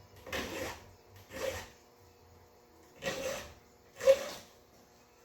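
File rasping on a chainsaw chain, four strokes in two pairs. These are typical of taking the depth gauges (rakers) down a couple of licks on a new chain.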